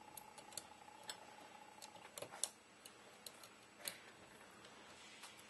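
Faint, scattered small clicks and ticks from fingers working a tiny coil spring onto the selector plate of a version 2 airsoft gearbox, with a few sharper clicks about two and a half and four seconds in. A faint steady hum stops about two seconds in.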